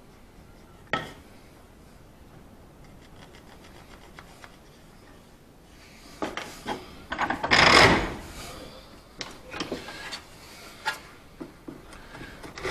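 A piece of wood handled and worked by hand: a single knock about a second in, then from about six seconds in irregular scraping and rubbing of a tool on the wood.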